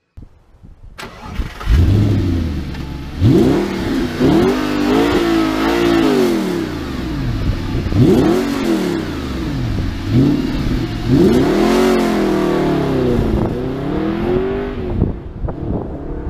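Audi R8's naturally aspirated 4.2-litre V8 FSI engine revved hard over and over, its pitch sweeping up and dropping back about eight times. The sound comes in with a sharp click about a second in.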